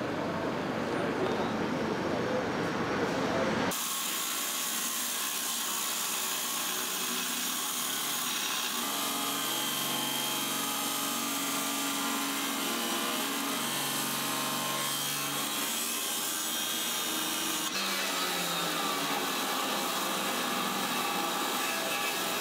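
Handheld power tool grinding against the metal of a model trawler, throwing sparks: a steady, harsh, high scraping hiss. The first few seconds hold low street traffic rumble before the grinding starts abruptly.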